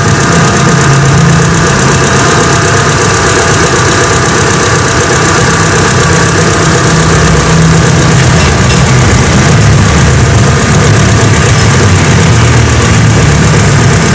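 Hyundai Atoz engine idling steadily, heard up close at the accessory belt just after the fan belt has been doused with water. The owner is testing whether a dry fan belt is the cause of the engine's tek-tek ticking.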